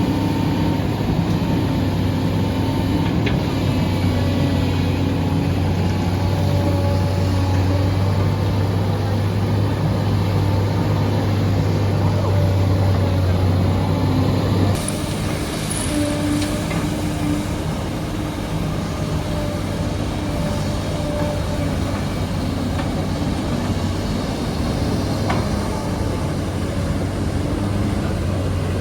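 SANY hydraulic excavator's diesel engine running steadily under digging load, a continuous low hum. About halfway through the sound changes abruptly and runs a little quieter.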